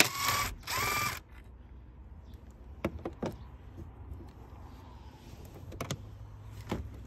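Cordless power drill/driver running in two short bursts at the start, the second winding up in pitch, followed by a few light clicks and knocks.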